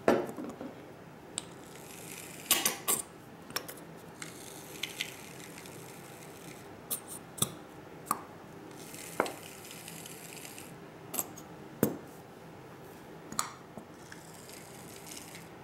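Plastic squeeze bottle of leave-in conditioner being handled and squeezed to fill a small plastic bottle: irregular plastic clicks and knocks every second or so, with soft hissing and squelching as the thick conditioner is forced out.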